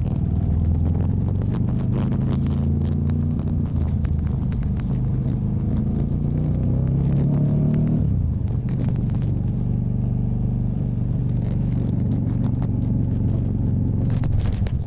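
Hyosung GT250 motorcycle's 250 cc V-twin engine running at low riding speed. Its pitch climbs over a few seconds, then drops suddenly about eight seconds in, and it runs on steadily at the lower pitch.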